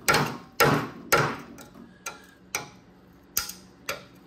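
Steel rod tapping on the rusted sheet steel of a Triumph TR6 frame's trailing arm support: a run of sharp metallic knocks about two a second, the first three loudest, then lighter taps. The support is rotted through and is to be cut out and replaced.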